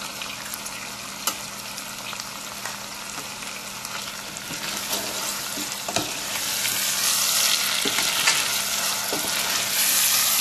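Chopped vegetables and spices sizzling in a stainless steel pot while a metal spoon stirs them, clicking and scraping against the pot. The sizzle grows louder about halfway through.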